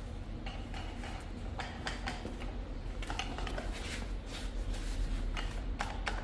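Irregular light metallic clinks and rattles from sheet metal being handled, over a steady low hum.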